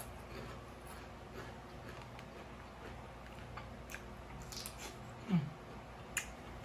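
Close-up mouth sounds of biting into and chewing a crisp cucumber slice, with small scattered wet clicks and crunches. Just after five seconds comes a brief low falling sound, the loudest moment, followed by a sharp click.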